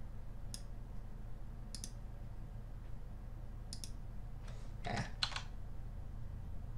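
Computer mouse clicking while drawing, about five sharp, irregular clicks with a louder pair about five seconds in, over a low steady hum.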